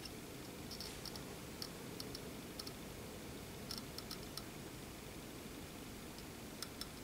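Faint room tone with a scattering of faint, light ticks and clicks.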